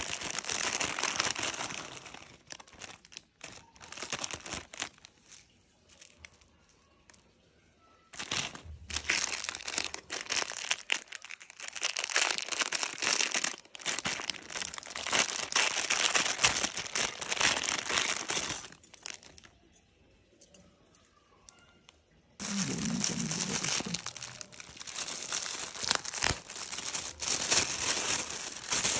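Thin plastic packaging bags crinkling and rustling as they are handled and unwrapped. The sound comes in several spells with short quiet pauses between them.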